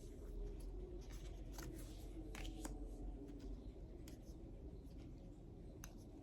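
Tarot cards being handled one at a time: soft papery slides and a few light, scattered clicks and taps as cards are turned over and laid down, over a faint low room hum.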